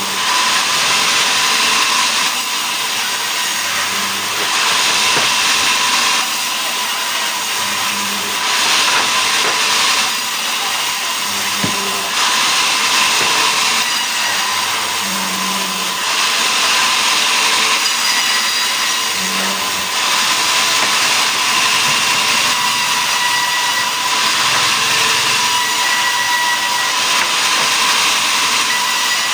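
Sawmill saw cutting mahogany into boards: a continuous machine noise with a steady tone through it, swelling louder and easing back every couple of seconds as the cut loads and unloads.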